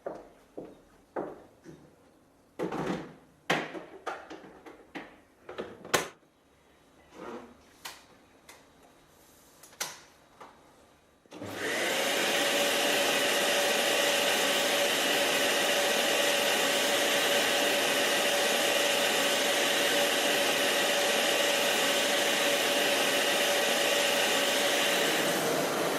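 Scattered clicks and knocks of handling for about eleven seconds, then a Karcher DS 6 Premium water-filter vacuum cleaner switches on suddenly and runs steadily with an even rushing noise and a steady hum, easing slightly near the end.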